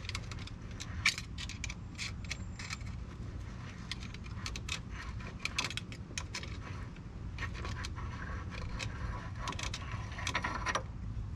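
Light, irregular metallic clicks and scrapes of a steel pick working at the centre of a front wheel hub, prying loose small hub parts, over a low steady background rumble.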